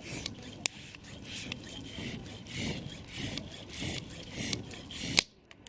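Campfire crackling: sharp wood pops over a fluttering hiss of burning, with the loudest pop about five seconds in.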